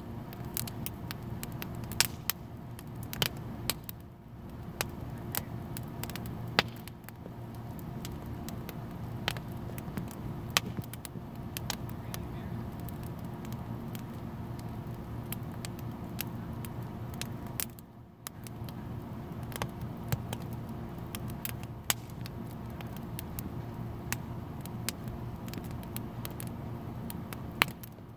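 Wood fire of sticks and branches crackling in an open firepit, with frequent irregular sharp pops, over a steady low hum.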